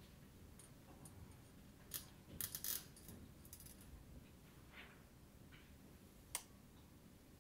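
Near silence, broken by a few light rustles and clicks: sheet music handled at the piano about two seconds in, and one sharp click near the end.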